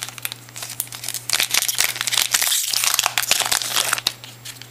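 A trading-card pack wrapper crinkling and tearing as it is pulled open by hand: a dense run of crackles, thickest in the middle and thinning out near the end, over a steady low hum.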